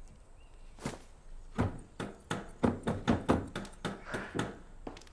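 Kitchen work: a run of irregular wooden knocks and clacks, about a dozen over some three and a half seconds, from knives and utensils striking wooden chopping boards.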